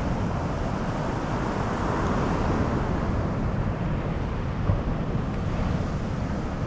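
Wind rumbling on the microphone over the steady wash of surf, swelling a little about two seconds in, with one short knock about two-thirds of the way through.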